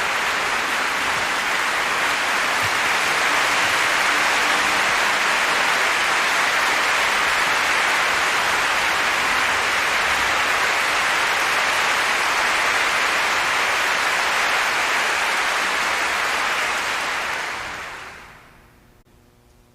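Concert hall audience applauding steadily and densely, then fading away near the end.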